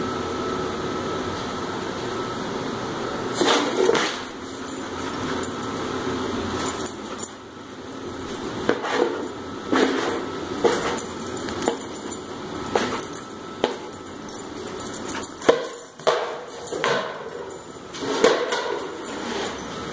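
Plastic frisbee knocking and scraping on a concrete floor as a broom pushes it and a dog noses at it: irregular taps and scrapes every second or two, with a few sharper knocks.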